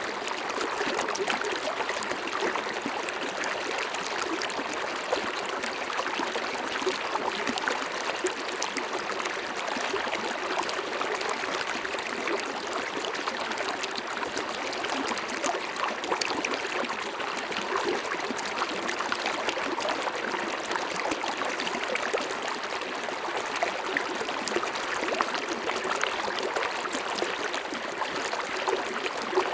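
River water flowing: a steady rush, dotted with many small splashes and gurgles.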